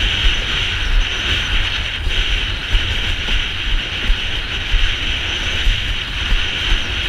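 Strong wind buffeting a GoPro's microphone while a windsurf board sails fast over lake chop, with a steady rush of water under the board and small irregular gusts and slaps.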